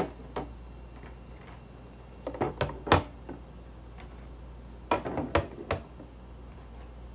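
Eggs being set into a clear plastic storage bin, with hands knocking against the plastic: two clusters of light knocks and clatters, about two and a half seconds in and again about five seconds in, over a steady low hum.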